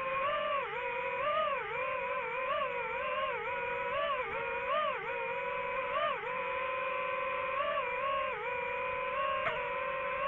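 Small motor buzzing with a high steady tone and overtones, its pitch dipping and rising again and again as the throttle changes, then holding steadier in the second half. A single sharp click comes about nine seconds in.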